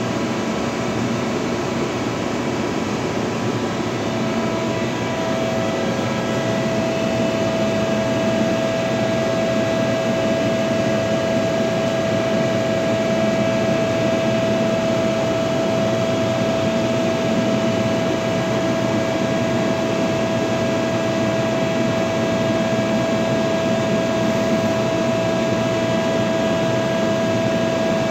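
Giddings & Lewis G50-T CNC horizontal boring mill running under power: a steady mechanical hum with several steady whines, one of which comes in strongly about five seconds in.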